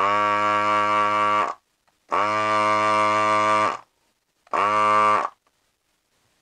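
Electric desoldering gun's vacuum pump buzzing in three bursts, the first two about a second and a half each and the last under a second, each switching on and cutting off sharply. It is sucking the solder off the legs of a MOSFET on a power-supply circuit board.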